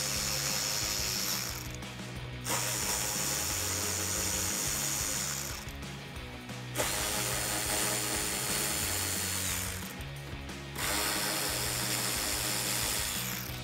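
Cordless electric ratchet spinning out the screws and bolts of a truck's inner wheel-well liner. It runs in steady whirring bursts of about three seconds: one ends about a second in, then three more follow, each after a pause of about a second.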